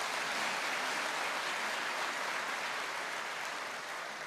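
Large audience applauding steadily, slowly dying away towards the end.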